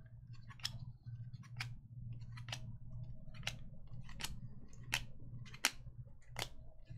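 A stack of glossy trading cards being flipped through one at a time, each card giving a crisp snap or click against the stack about once a second, over a low steady hum.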